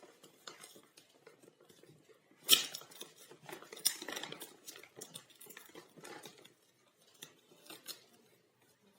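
Hands handling and opening a smartwatch's packaging: irregular clicks, taps and rustles of cardboard and plastic, with a sharp tap about two and a half seconds in and a cluster of scraping about four seconds in.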